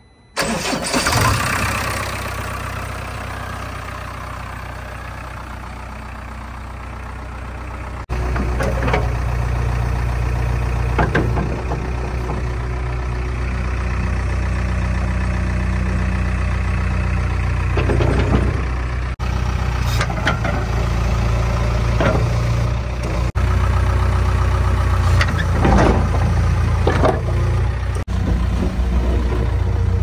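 JCB 3DX backhoe loader's diesel engine starting about half a second in, then running and easing down over the next few seconds. From about eight seconds the engine runs louder and steady, with a series of sharp knocks and clanks from the working machine.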